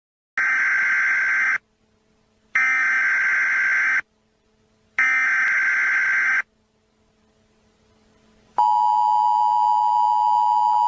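Emergency Alert System alert opening: three bursts of buzzing SAME header data tones, each about a second and a half long with a second's gap between them, then the steady two-tone EAS attention signal starting about eight and a half seconds in.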